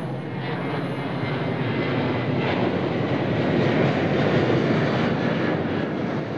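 Twin-engine jet airliner passing low overhead, a steady engine roar that swells to its loudest about four seconds in and eases slightly near the end.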